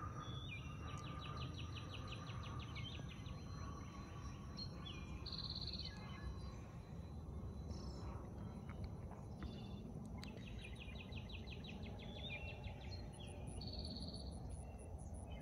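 A songbird singing a rapid, pulsing trill twice, about nine seconds apart, with short high notes in between, over steady low outdoor background noise.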